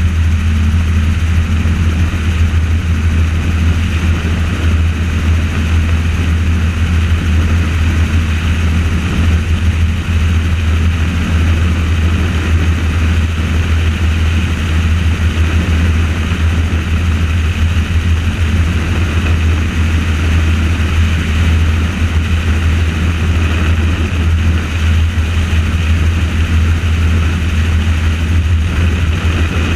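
Rotors and motor of the aircraft carrying the camera, running steadily in flight: a loud, even drone with a strong deep hum that does not change.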